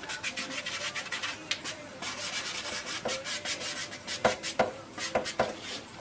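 Stiff brush scrubbing oil paint into a canvas in short, rapid back-and-forth strokes, with a few sharper taps of the brush about four to five seconds in.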